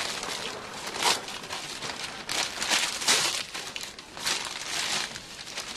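Gift wrapping and clear plastic wrap crinkling and rustling as a present is unwrapped, in a run of irregular rustles with stronger crackles about one, three and four seconds in.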